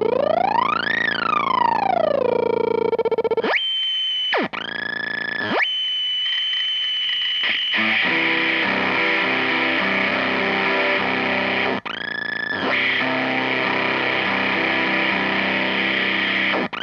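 Electric guitar through a Chase Bliss Bliss Factory fuzz pedal, the Fuzz Factory circuit self-oscillating. Over the first few seconds a squealing tone sweeps up in pitch and back down. Then high steady tones cut in and out abruptly, and from about eight seconds in a gritty, noisy fuzz runs over played guitar notes.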